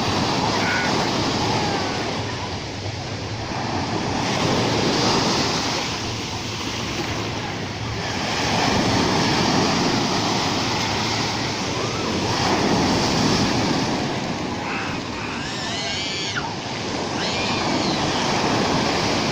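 Rough sea surf: waves breaking and washing in, the rush swelling and falling about every four to five seconds.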